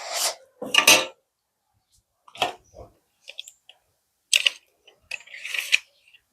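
A few short clicks, knocks and scrapes, spread irregularly with quiet gaps between them, from tools being handled while a tile is measured and marked out in pencil.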